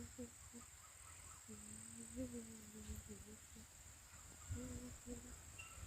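Faint, steady high-pitched drone of insects, with a few faint, distant low-pitched calls, one held for nearly two seconds.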